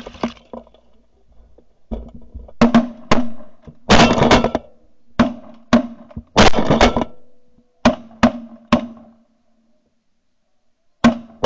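Volley of shotgun blasts from several hunters firing on a passing flock of geese: more than a dozen shots in quick, overlapping runs starting about two seconds in, then a pause and one more shot near the end.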